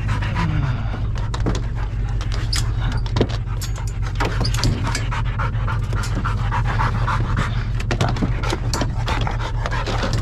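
Hunting hounds panting hard close by, winded after a chase, with scattered claw clicks and knocks as they scramble onto a pickup's tailgate. A steady low hum runs underneath.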